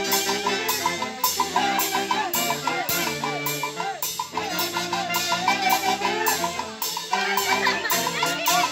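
Dance band music: a drum kit keeps a steady beat, about two cymbal strokes a second, under wind instruments playing the melody.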